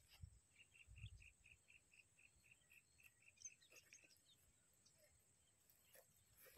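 Near silence with faint outdoor chirping: a run of short, evenly spaced chirps, about four a second, that starts about half a second in and stops about four seconds in.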